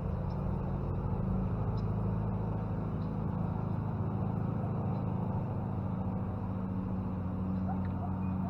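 A steady low mechanical hum, like a motor running, holding an even pitch throughout.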